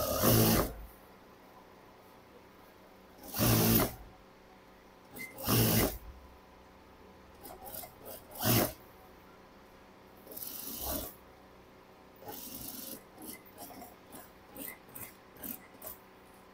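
Industrial sewing machine stitching a shirt collar in short runs of about half a second, six of them, the first few the loudest, with faint clicks of the needle and cloth between runs near the end.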